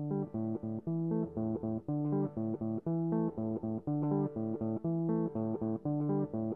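Background music with a steady, repeating riff.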